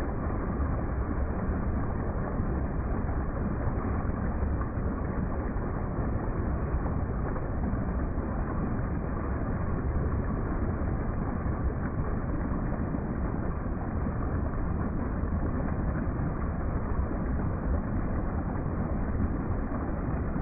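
Small waterfall pouring over a rock ledge into a pool: a steady rush of falling water with a deep rumble underneath.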